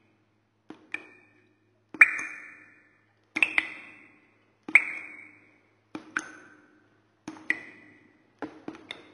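Single water drops plinking one at a time, seven in all, about one every second and a quarter. Each is a sharp double tick followed by a clear ringing note that fades over about a second.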